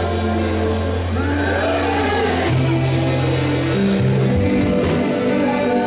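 Slow church background music: long held bass notes under sustained chords, the bass stepping up to a higher note about halfway through.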